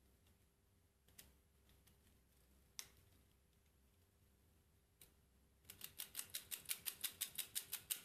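3D-printed plastic Clockwork Heart's Ulysse-style escapement ticking, a fast even run of about nine sharp ticks a second that starts a little over two-thirds of the way through. Before it come a few single plastic clicks from handling the mechanism.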